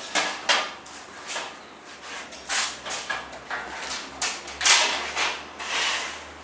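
Irregular light knocks, clacks and scraping noises, about a dozen in a few seconds, as aluminium profiles are handled and turned over.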